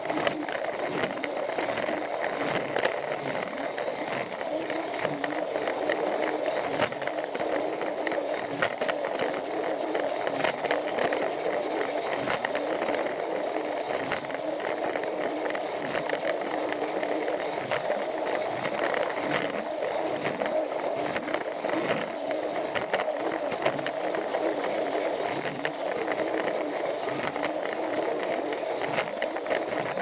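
Plarail battery-powered toy train running on plastic track: its small motor and gears whir steadily while the wheels rattle and click over the rail joints.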